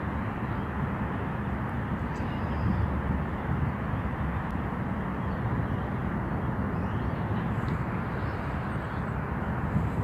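Steady, even outdoor rumble with no distinct events, strongest in the low end.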